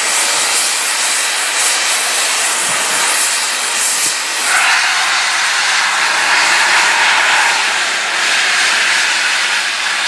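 Steam locomotive 60163 Tornado, an LNER Peppercorn A1 Pacific, hissing loudly as it starts away with steam blasting from its open cylinder drain cocks. The hiss gets stronger about halfway through.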